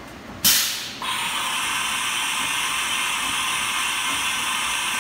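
Leadwell V40 CNC vertical machining centre in motion: a sharp blast of air about half a second in, then a steady mechanical hiss with a faint whine.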